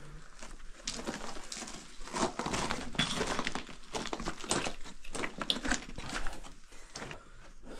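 Footsteps crunching and scraping on loose rock and gravel, in irregular clusters of crackles.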